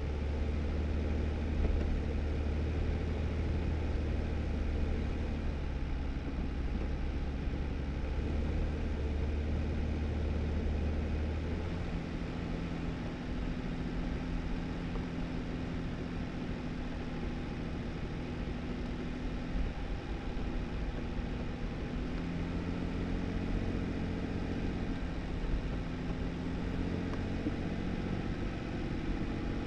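2018 Jeep Wrangler driving on a snowy dirt road: steady engine and tyre noise. About twelve seconds in, the engine's deep low hum drops away and a higher, steady engine note takes over.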